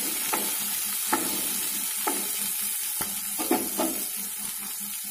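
Chopped onions sizzling in hot oil in a non-stick kadai, a steady hiss, with a spatula scraping through them in several short strokes across the pan.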